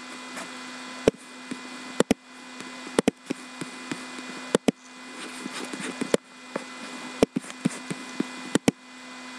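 Laptop keys and trackpad being clicked: about a dozen sharp clicks, several in quick pairs, over a steady low hum.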